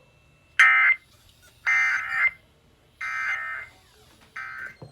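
Emergency Alert System end-of-message data bursts: four short, buzzy digital tone bursts about a second apart, marking the close of the alert.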